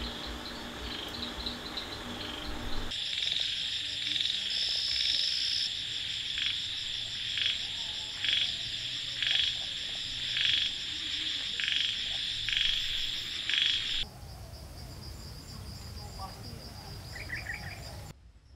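Outdoor wildlife ambience: a steady high-pitched insect chorus, with a short animal call repeating about once a second through the middle. The ambience shifts abruptly a few times and drops quieter near the end.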